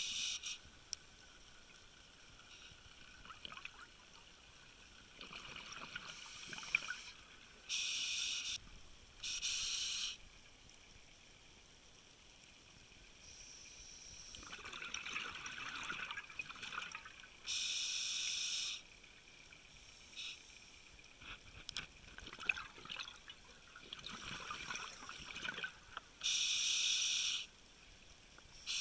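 Water rushing and splashing in swells, with several abrupt bursts of high hiss about a second long each.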